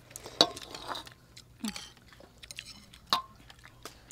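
Eating soup: metal spoons clinking against plates and a wooden ladle knocking in a steel serving bowl, with chewing between them. A few sharp, separate clinks, the loudest about half a second in.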